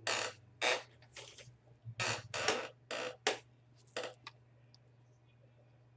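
Computer keyboard being typed in a quick, uneven run of about a dozen keystrokes that stops about four seconds in, over a low steady hum.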